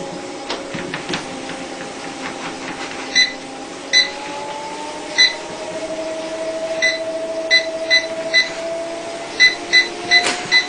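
Electric treadmill running with a motor whine that slowly rises and falls in pitch, while the console sounds about eleven short single beeps, coming faster near the end.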